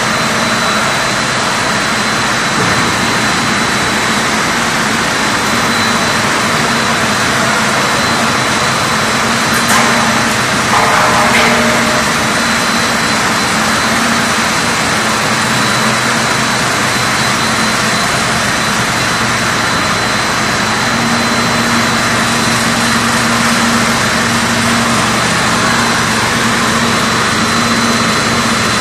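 Macaroni production line machinery running, with its single-screw extruder under way: a loud, steady mechanical noise with a constant high whine and a low hum that comes and goes. A short knock sounds about ten seconds in.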